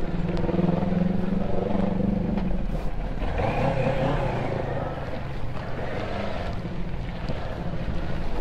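Kawasaki sport bike's engine running at low revs as it creeps and filters through slow traffic, with road and traffic noise around it.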